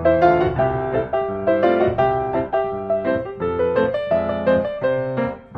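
Background piano music: a run of single notes and chords played at a steady moderate pace.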